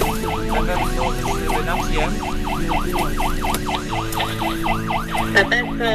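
Emergency-vehicle siren on a fast yelp, its pitch sweeping up and down about five times a second, heard from inside a fire engine's cab. The sweeps stop near the end.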